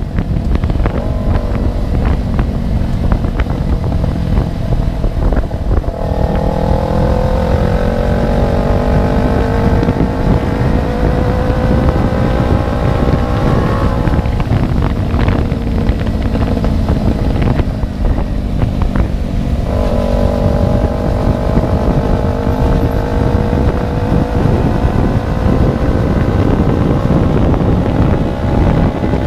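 Kawasaki Ninja 250 FI parallel-twin engine running with no exhaust fitted, under way on the road. The engine note climbs steadily from about six seconds in, drops back about fourteen seconds in, and climbs again from about twenty seconds in.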